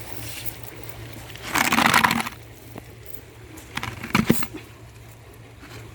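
Water splashing: one loud splash about a second and a half in, then a few shorter splashes and drips around four seconds.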